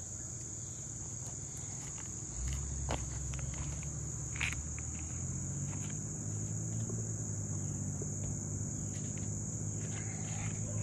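Steady high-pitched insect chorus of crickets, with a few faint footsteps walking away and a low rumble setting in about two seconds in.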